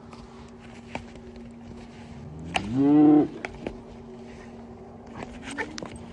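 One of the young cattle moos once. It is a loud call about a second long, rising in pitch, a little before the middle.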